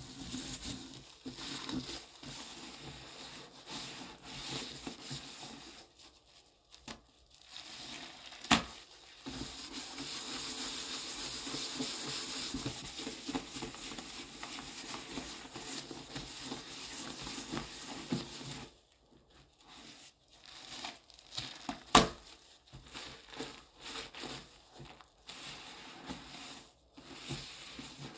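A sponge squeezed and pressed through thick wet cleaning paste, giving a crackling, squishing fizz. It runs steadily through the middle, with two sharp clicks, then turns quieter and more broken near the end.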